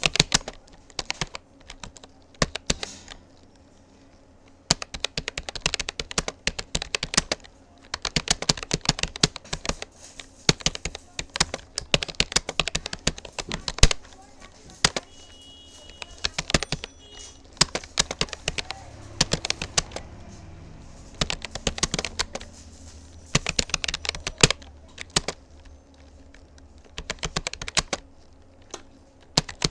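Rapoo computer keyboard being typed on at steady speed: rapid runs of key clicks broken by a few brief pauses.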